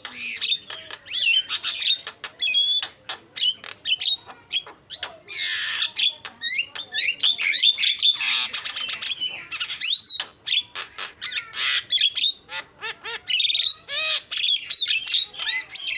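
Javan myna (jalak kebo) chattering without pause: a rapid, varied stream of squawks, chirps, rising and falling whistles and sharp clicks.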